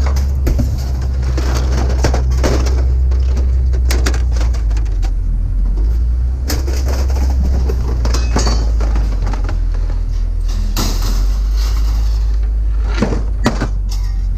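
Scrap items being handled, with irregular knocks, clanks and rattles over a steady low rumble.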